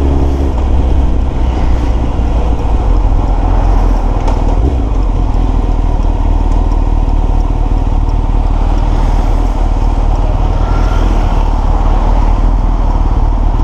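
Honda CBR929RR sport bike on the move, its inline-four engine running steadily under a dense low rumble.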